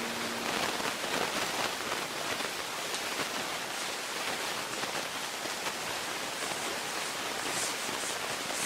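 A steady hiss of hallway room tone, with faint rustling and shuffling of people moving about.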